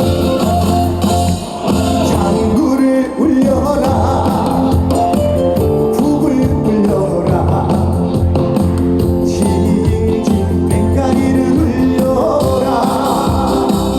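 A trot song performed live: band accompaniment with a steady bass line and beat, and singing over it. The music briefly drops out twice in the first few seconds.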